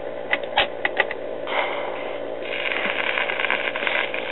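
RCA Victor 45 rpm record changer cycling: a run of mechanical clicks as the tone arm swings in and sets down on the record. Then the hiss and crackle of the stylus in the groove comes up through the single-tube amplifier as the record begins to play, weakly, from a crystal cartridge the owner judges basically dead.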